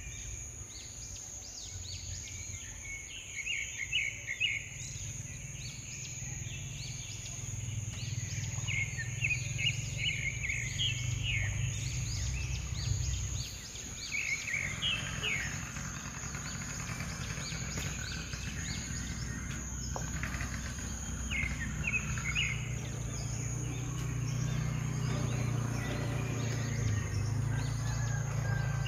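Outdoor ambience: small birds chirping in short rapid runs every few seconds, over a low steady rumble and a thin, steady high tone.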